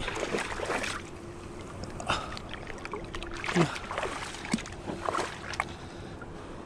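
Shallow seawater in a rock pool sloshing and splashing as a hand reaches in after a fish, with a run of splashes at the start and several short splashes and gurgles after.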